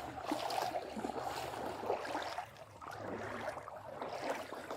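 Floodwater sloshing and rushing as a high-water rescue vehicle pushes through it, over a low steady engine hum.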